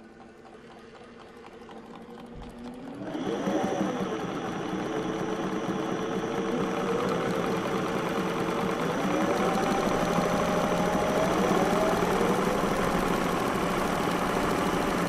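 A motor running loudly, its pitch rising three times as it speeds up, after a quieter steady hum that builds over the first few seconds.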